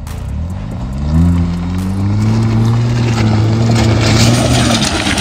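Modified Mahindra Thar's engine, through its valved Valvetronic exhaust, revving up in the first second and held at high revs as the Thar climbs a rocky slope, easing off near the end. Loose stones crunch under the tyres from about halfway in.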